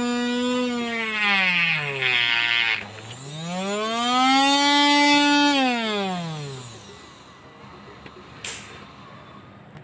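Homemade drill built on a 12 V 775 DC motor whining at high speed. Its pitch sags as the motor slows under load, climbs back, then falls away as it winds down and stops about seven seconds in. Two short sharp clicks follow.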